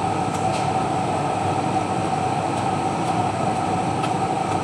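Steady mechanical hum: a constant mid-pitched tone over an even rushing noise, with a few faint clicks in the first second.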